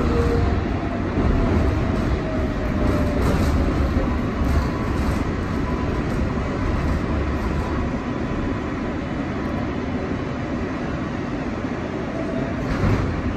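Steady rumble and hum inside an R142A subway car, with a faint electric motor whine falling slowly in pitch over the first few seconds.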